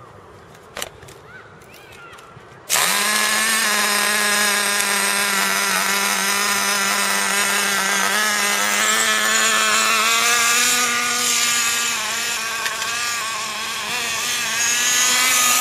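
Small glow-fuel engine of a nitro RC car catching suddenly about three seconds in, then running steadily at a high pitch.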